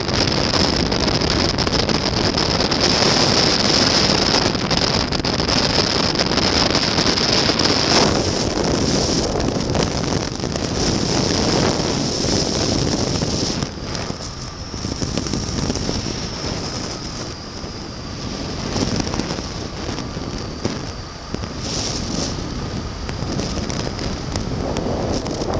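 Engine and pusher propeller of a Pegasus Quantum 912 flexwing microlight trike running steadily in flight, its Rotax 912 four-cylinder engine buried under heavy wind rush on the microphone. The sound drops somewhat in level about halfway through and stays quieter.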